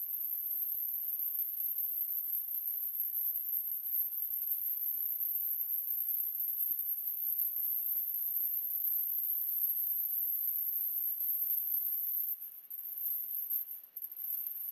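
A steady, very high-pitched hiss, with no engine running. It wavers and dips near the end.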